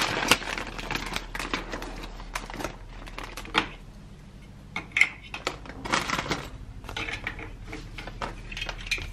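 Paper handling: a sheet of stickers and a paper instruction booklet being held, shuffled and leafed through, with scattered light rustles and small clicks.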